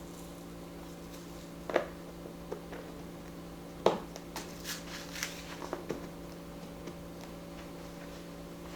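Kitchen storage canisters being handled: a few sharp clicks and knocks, loudest about two and four seconds in, with a cluster of lighter taps midway, over a steady low electric hum.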